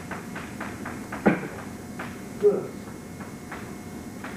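Chalk tapping and scraping on a blackboard in quick short strokes as letters are written, with one sharper knock about a second in.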